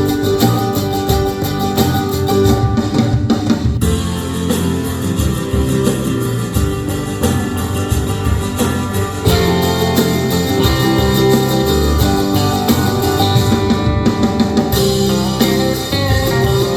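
Music with guitar and drums played back through a 6.5-inch two-way coaxial car speaker under test. The tone of the playback changes abruptly a few times.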